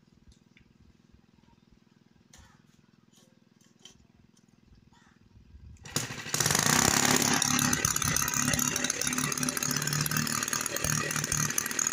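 Faint clicks of the carburettor linkage being handled. About halfway through, a small MK12 petrol engine starts and runs at high speed. It keeps racing and does not slow when the throttle lever is moved back, which the mechanic puts down to a broken governor.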